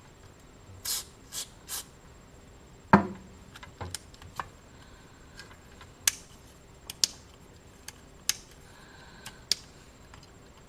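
Small parts and hand tools being handled on a workbench: three short scrapes, then a sharp click about three seconds in, followed by scattered lighter clicks and taps.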